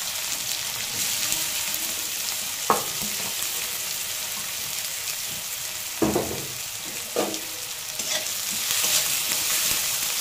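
Chopped onions sizzling in hot oil in an aluminium kadai, a steady frying hiss with a few sharp knocks. Near the end a metal spatula stirs them, scraping the pan and making the hiss louder.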